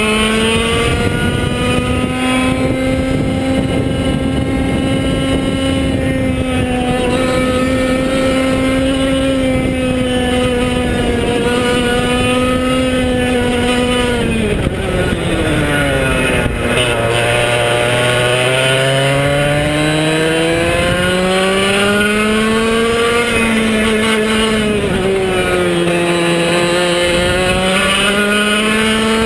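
100cc two-stroke kart engine with direct drive and no clutch, running flat out on a lap, its revs rising and falling with the kart's speed. The pitch holds high, falls sharply about halfway through as the kart slows, then climbs steadily back up, with a smaller dip and rise near the end.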